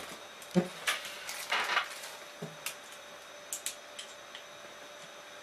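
Scattered metallic knocks and clinks, with a short scrape just under two seconds in, as the steel-cased Silverstone GM600-G redundant power supply is set down and shifted into place on a rack chassis.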